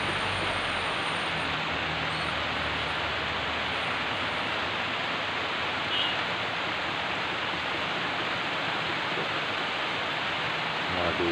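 Heavy rain pouring steadily, a dense, even hiss. A brief faint tick about six seconds in.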